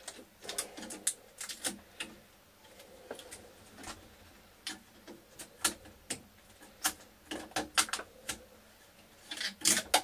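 Irregular light clicks and taps of plastic parts being handled on a 3D printer frame as a piece is taken off, with a louder cluster of clicks near the end.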